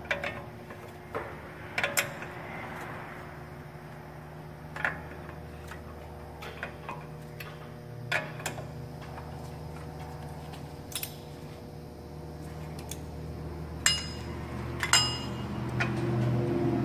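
Hand wrenches clicking and clinking on a steel ball-joint stud and nut as the nut is worked loose, with scattered sharp metal clinks, two near the end ringing briefly, over a steady low hum.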